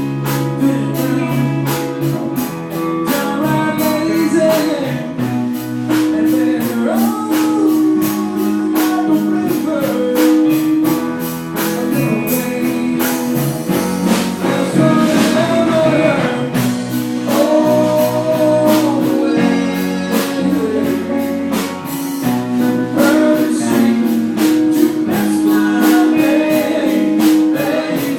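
A band playing a song: singing over held instrument notes, with a steady percussive beat.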